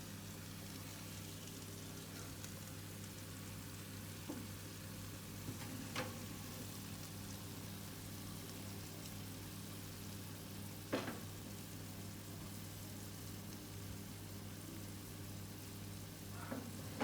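Whole chicken with potatoes and capsicum sizzling in its own fat in a hot oven: a steady, quiet fizzing hiss over a low hum, with a few sharp clicks, the loudest a little past halfway.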